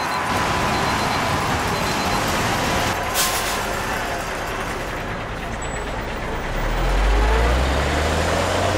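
City street traffic noise with a heavy vehicle such as a bus or truck. Its air brakes give a short hiss about three seconds in, and near the end its engine rumbles louder and climbs in pitch as it pulls away.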